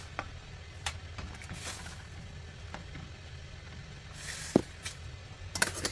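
Plastic slotted spoon scraping and tapping against a stainless steel pan while boiled squid is scooped out of the boiling water, over a steady low rumble from the boiling pot on the gas burner. Scattered light clicks, one sharp knock about four and a half seconds in, and a quick cluster of clicks near the end.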